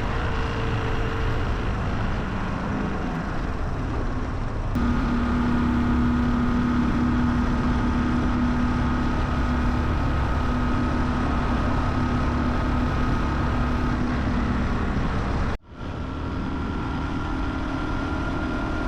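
Honda Hunter Cub motorcycle riding along, its small single-cylinder engine running steadily under a heavy rush of road and wind noise. A steady engine hum stands out through the middle, and the sound drops out abruptly for an instant near the end before carrying on.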